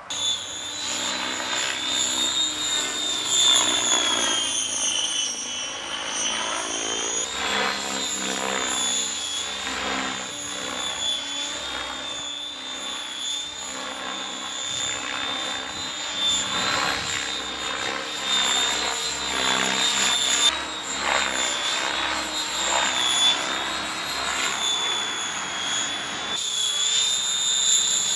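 Electric 3D RC helicopter flying: a high motor whine over the whir of the rotor blades. The pitch sags around five seconds in and jumps back up about seven seconds in, then keeps wavering slightly as the helicopter manoeuvres.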